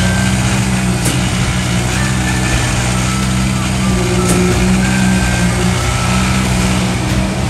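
A heavy truck engine runs steadily on a concrete job site with an even low hum, under a wash of site noise and a couple of brief clicks.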